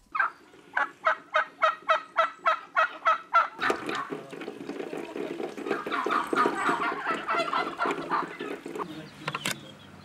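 A flock of domestic turkeys calling. It opens with a run of evenly spaced calls, about four a second, then turns into a dense, overlapping chorus of gobbling and other poultry calls. A single sharp click comes near the end.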